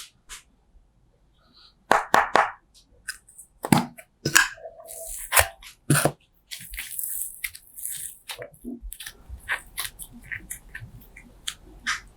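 Slime being handled: irregular crackling and crunching clicks, with a short high hiss about seven seconds in.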